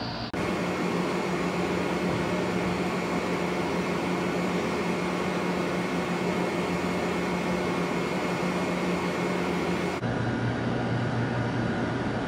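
Steady machine-like hum over a bed of hiss, as from room air conditioning or a fan. The hum's pitch steps up shortly after the start and drops back again near the end, changing abruptly each time.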